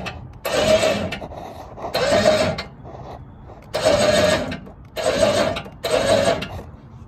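Vehicle winch motor run in about six short bursts of under a second each, with a whine in every burst, tensioning a strap to bend a bent steering bar straight.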